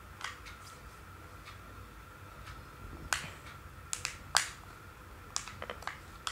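Scattered sharp clicks and taps of fingers and nails on an aluminium-cased power bank and its plastic end cap as it is gripped and turned over to be pried open; the loudest come about three and four and a half seconds in.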